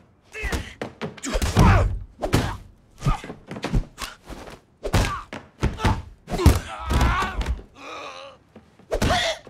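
Fist-fight sound effects: a rapid, uneven string of punch and body-blow thuds, mixed with men's grunts of effort and pained groans, and a strained cry near the end.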